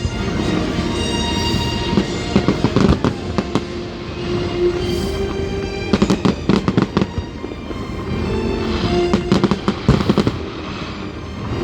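Fireworks display going off: clusters of sharp bangs and crackles, heaviest about a second in, around three seconds in, from six to seven seconds and again near ten seconds, with music playing underneath.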